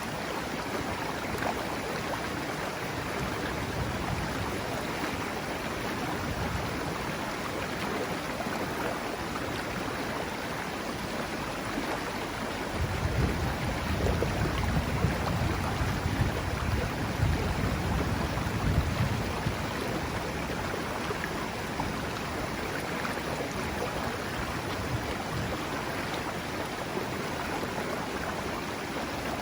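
Mountain river flowing: a steady rush of water. A low rumble swells under it for about six seconds in the middle.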